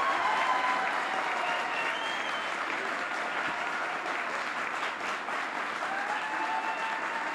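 Audience applauding steadily in a standing ovation, dense even clapping with a few voices faintly heard through it.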